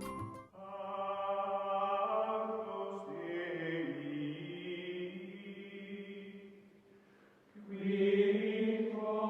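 Chant-like singing in long, held notes: one long phrase that steps down in pitch partway through, a short dip, then a second held phrase starting near the end.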